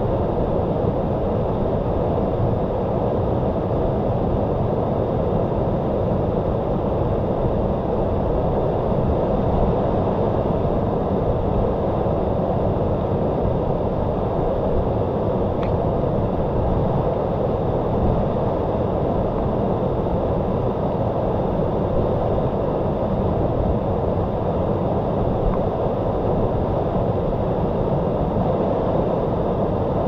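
Waterfall: an even, deep rushing of falling water, steady throughout.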